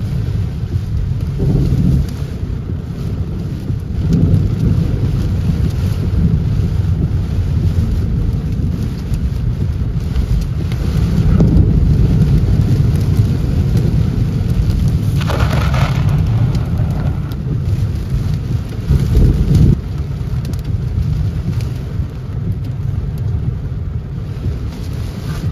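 Heavy rain on a car's windshield and body with rumbling thunder, heard from inside the moving car during a severe thunderstorm. The rumble swells several times, and there is a brief louder hiss about fifteen seconds in.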